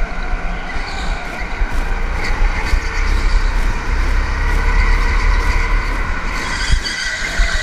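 Go-kart running on a track: a steady engine drone with a higher whine over a low rumble.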